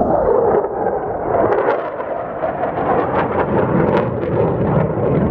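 Fighter jet flying low past the canyon overlook, its engine noise loud and continuous, with rough crackles through the middle.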